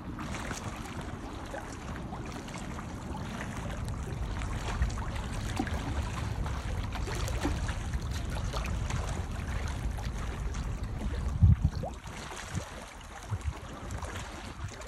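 Gentle sea water lapping and splashing among concrete wave-breaker blocks, with a low rumble of wind on the phone's microphone. A brief louder surge about eleven seconds in.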